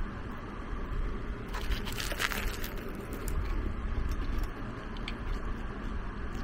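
Biting into and chewing a spam-and-egg burger: a short run of crunchy, crackling sounds about one and a half to two and a half seconds in, over a steady low rumble.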